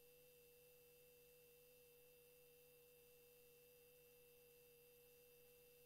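Near silence: room tone with a faint, steady, unbroken hum-like tone.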